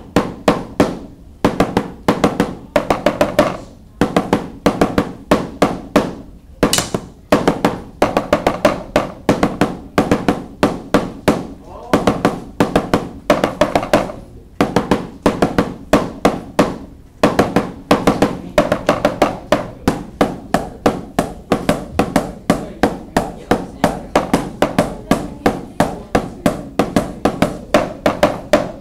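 Wooden drumsticks playing a tenor-drum exercise across four Remo practice pads, moving from pad to pad. It is a fast, unbroken stream of sharp taps with regularly recurring louder accents.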